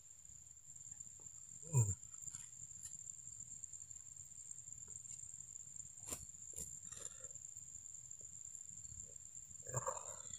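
Steady high-pitched insect whine, like a cricket or cicada chorus, holding one tone throughout. A single thump a little under two seconds in is the loudest sound, with a few faint clicks, and a brief rustle of cloth near the end as a shirt is pulled off over the head.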